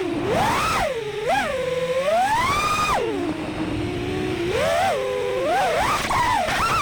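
The brushless motors of a 5-inch FPV freestyle quadcopter (T-motor F60 Pro, 1950KV) whining, the pitch swooping up and down with the throttle. A long climb to a high pitch ends suddenly about three seconds in, and the motors hum low and steady for a moment before quick throttle swoops again.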